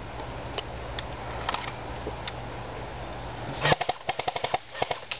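Airsoft rifle firing a rapid burst of sharp clicking shots about three and a half seconds in, with a few single clicks before it, over a steady low hum.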